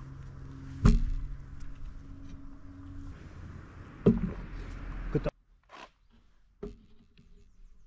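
Workshop handling sounds: two loud knocks, about a second in and about four seconds in, over a steady low hum. The hum cuts off suddenly about five seconds in, leaving a few faint clicks.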